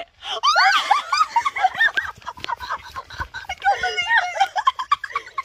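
Women squealing, shrieking and laughing with excitement in high, swooping voices, with a few breathless exclamations mixed in.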